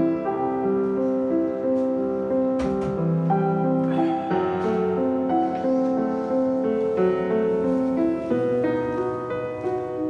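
Background score played on piano: a gentle melody over chords, one note after another.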